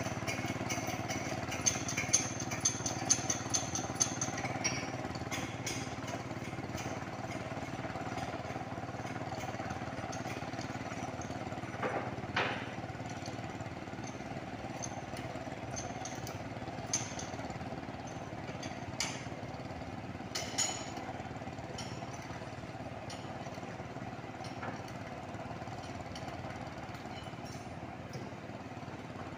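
Tractor engine running steadily under load while plowing a rice paddy, with a few short clanks and knocks from the implement.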